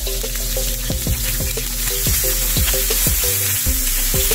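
Galunggong (round scad) frying in hot oil in a pan, with a steady sizzle. Background music with a steady beat plays under it.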